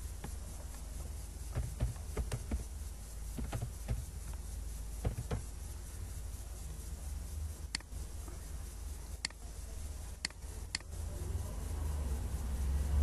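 Computer keyboard keys tapped in a short run of light clicks, then four sharp, separate mouse clicks, over a steady low hum.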